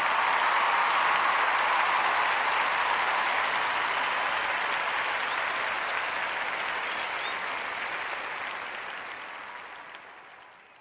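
A crowd applauding, a dense patter of clapping that fades out over the last couple of seconds.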